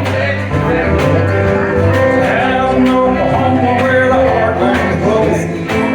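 Live country band playing, with guitars, a bass line and a steady drum beat.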